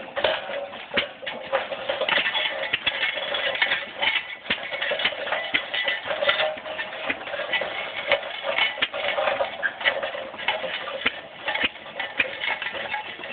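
Antique open-flywheel stationary engine powering a homemade log tractor, running with sharp, unevenly spaced knocks, several a second.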